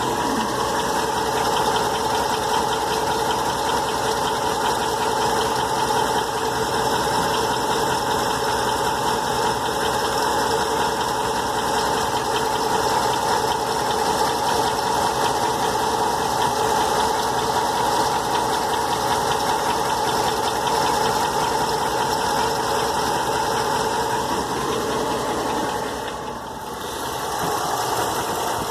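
2008 Dodge Ram 1500 engine running steadily with a rapid, regular knock. It goes briefly quieter near the end.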